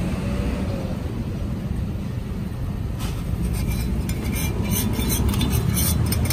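Steady low rumble of road traffic. From about three seconds in, a quick run of light clicks and clinks from a small metal scoop knocked against a plastic drink cup.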